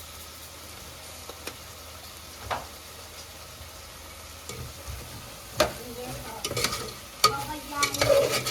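Cooking utensils clinking and scraping against a pot or pan. A few isolated clicks come first, then a busier run of clicks and knocks in the last three seconds.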